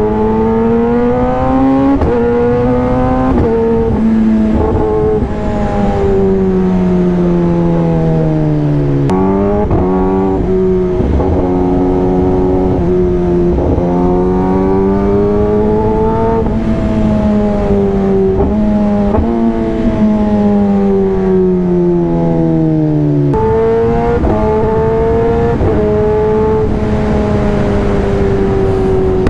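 Kawasaki ZX-10R inline-four sport bike engine under way, heard from the rider's seat. The engine note climbs and sags with the throttle and jumps suddenly several times as the rider changes gear.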